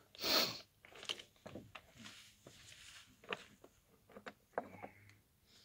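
A short rustle as a phone is handled and set down against rock, then faint scattered scuffs and clicks as a person steps about on the rock.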